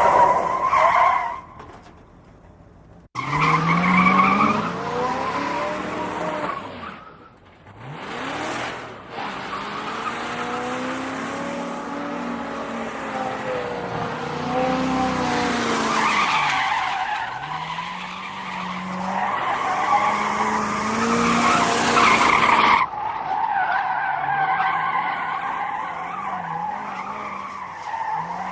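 Car tyres squealing through skids while the engine revs up and down. Several separate takes are joined with abrupt cuts.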